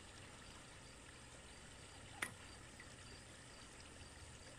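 Near silence: faint outdoor background, with a single short click about two seconds in.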